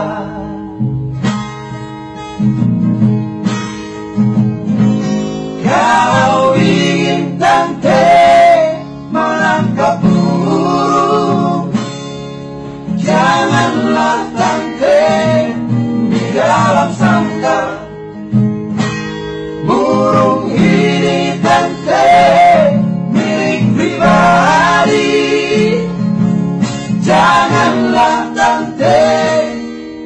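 A song with male singing over acoustic guitar. The guitar plays alone for the first few seconds, then the singing comes in about five seconds in, in phrases of a few seconds with short breaks between.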